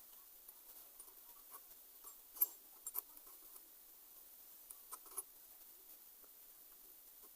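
Faint clicks and taps of small sewing-machine parts being handled while the tension regulator is worked on: a sharp click about two and a half seconds in, then a few lighter ones around three and five seconds.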